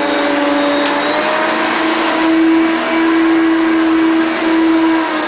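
1989 Hoover Concept 1 upright vacuum cleaner running loudly; about two seconds in its motor whine steps up in pitch and gets louder as the power surge is engaged.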